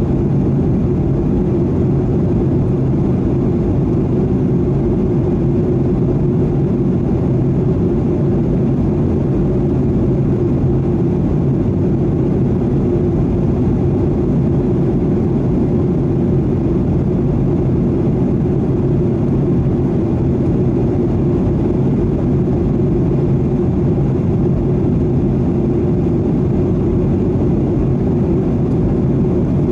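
Steady cabin noise of a Boeing 737-800 in cruise: the low hum of its engines and rush of airflow, heard from a window seat inside the cabin, unchanging throughout.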